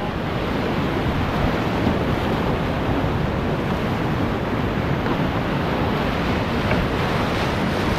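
Whitewater rapid rushing steadily and loudly around an inflatable kayak as it runs through the rapid.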